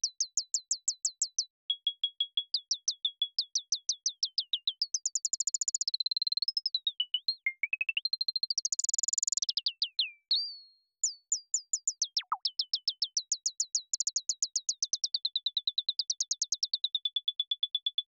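Synthesized bird tweets from a u-he Zebra 2 looping-envelope patch: a fast train of short chirps, about six a second, each sweeping down in pitch. The sweep depth changes as the mod wheel and XY pad are moved, so the chirps swing between steep tweets and flat repeated pips, with one long falling swoop about two-thirds of the way through.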